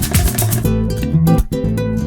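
Background music: strummed acoustic guitar with a drum beat that drops out about a third of the way in, leaving the guitar on its own.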